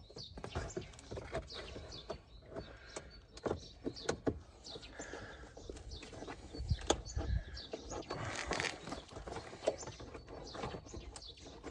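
Irregular plastic clicks, knocks and scraping as a clip-removal tool works at a stubborn plastic push-pin clip holding a car's wheel-arch liner.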